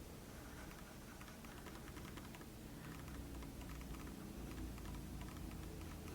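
Computer keyboard keys being pressed: faint, irregular clicking.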